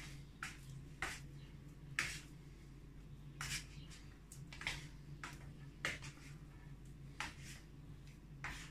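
A dough scraper scraping soft, sticky sourdough up off a wooden worktop, in about a dozen short, quick strokes at irregular intervals, over a steady low hum.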